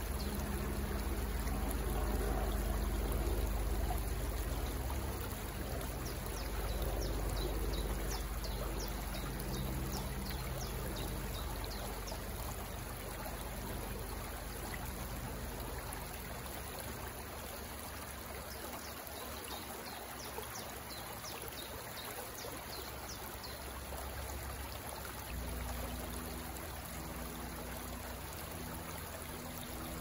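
Water running and trickling steadily, with many short, high bird chirps over it, thicker in the first half.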